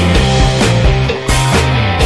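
Rock music with a steady drum beat and a bass line.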